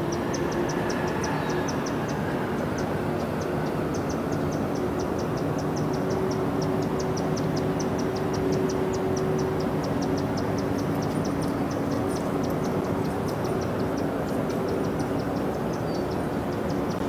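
Steady mechanical drone with a low, even hum, over which a rapid high-pitched chirping repeats several times a second.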